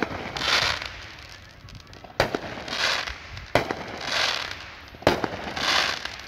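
Aerial fireworks bursting: four sharp bangs about one and a half seconds apart, each followed by a crackle of sparkling stars lasting under a second.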